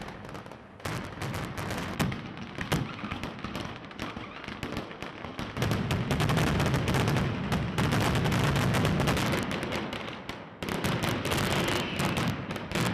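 Mascletà, a daytime firecracker barrage, going off in rapid, dense strings of bangs with deep booms. It reaches its loudest and densest about six seconds in, slackens briefly, then picks up again near the end.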